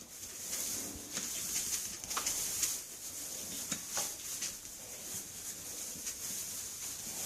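A kitten's claws scratching and clicking, a string of irregular light scratches and ticks.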